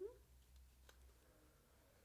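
Near silence: quiet room tone with a low hum, broken by a single faint click a little under a second in.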